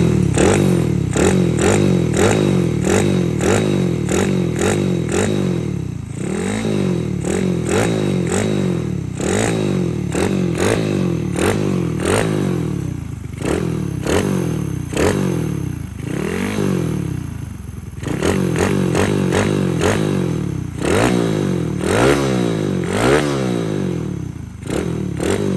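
Honda 67-type single-cylinder four-stroke motorcycle engine, built with a small 49 mm bore and a stroked crank, running on a test stand. The throttle is blipped again and again, so the revs rise and fall back: short quick blips mixed with several longer revs.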